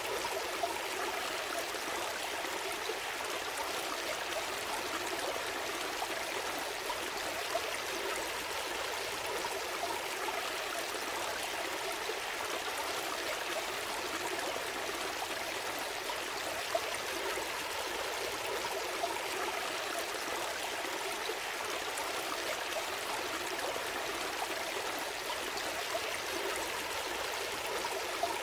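Gentle stream flowing and trickling steadily, an even babble of water with no breaks.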